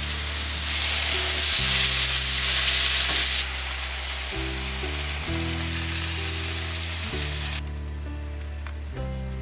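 Sirloin steak bites sizzling in olive oil in a hot skillet. The sizzle is loud for the first three and a half seconds, then drops to a softer hiss that dies away near the end. Background music plays with steady low notes.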